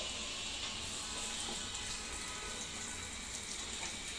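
Freshly added chopped onions frying in hot oil in a kadai, a steady sizzling hiss.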